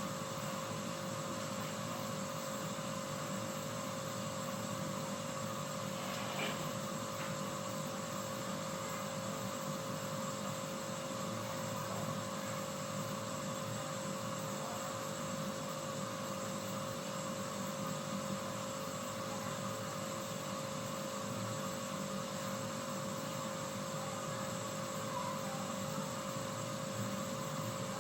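Water heating toward the boil on a stove: a steady rushing hiss with a faint steady hum under it, and a light tick about six seconds in.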